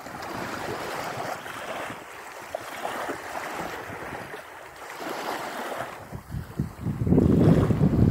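Small waves washing up on a sandy shore, with wind on the microphone. About seven seconds in, loud low wind buffeting on the microphone sets in and covers the waves.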